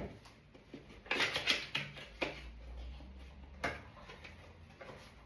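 Hands unpacking a boxed home diffuser: a few light knocks and clicks, with a short burst of rustling and crinkling about a second in.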